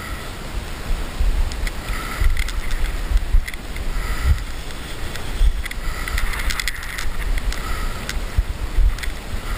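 Wind buffeting the microphone in uneven gusts over the flow of a shallow, rocky river, with a few faint clicks and rustles of gear.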